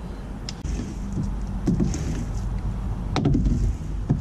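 Clicks and knocks of a window cleaner's pole and its tool head being handled and lifted to the glass, over a low rumble.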